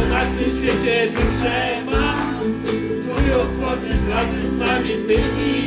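Live band music: guitar and bass playing a song at an even volume.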